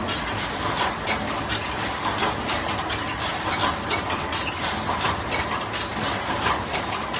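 Automatic wire mesh welding machine running, clacking sharply about twice a second over a steady mechanical din as it cycles through welding and feeding the mesh.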